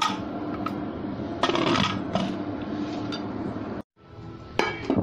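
Background music with metal clinks and scrapes from a pressure cooker and its lid being handled. The sound cuts out abruptly for a moment shortly before the end.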